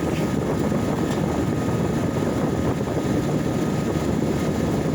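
Old Mitchell dehumidifier running steadily: an even rush of air from its fan, with a faint steady whine over it.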